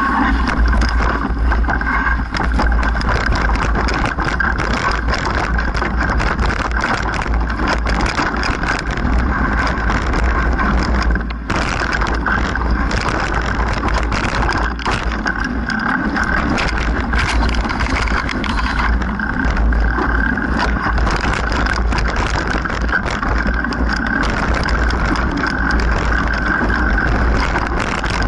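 Mountain bike ridden down a rocky singletrack: wind buffeting the bike-mounted camera's microphone in a steady low rumble, with the bike clattering and rattling over bumps throughout.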